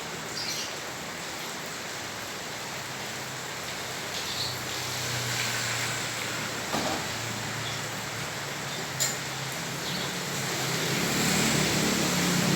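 Heavy rain falling on a flooded street, a steady hiss, with a motor vehicle's engine hum that grows louder over the last couple of seconds. A few short knocks stand out, the sharpest about nine seconds in.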